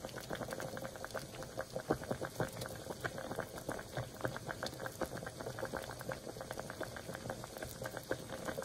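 Bubbling sound effect: dense, irregular little pops like liquid at a boil.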